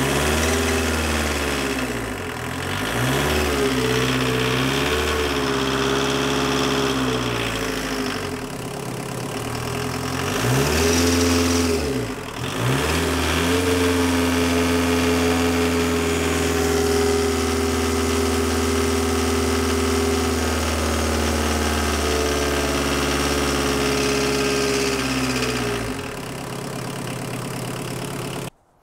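VW 1.6-litre four-cylinder turbodiesel running at high idle. Its speed swings up and down a few times in the first dozen seconds, then holds steady, drops about 26 seconds in, and the sound cuts off abruptly just before the end.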